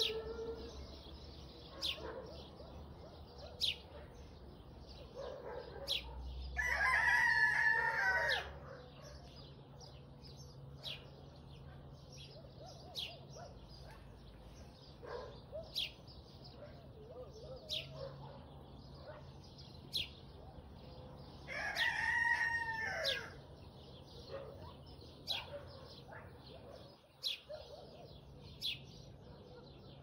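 A rooster crowing twice, each crow about two seconds long and some fifteen seconds apart, over short, sharp chirps from small birds repeating every second or so.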